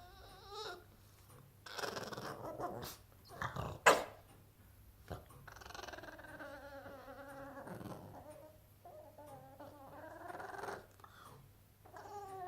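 Boston Terrier moaning and whining in long, wavering, warbling calls, a turkey-like gobble of complaint at a toy lost under the sofa. A short, sharp, loud sound about four seconds in.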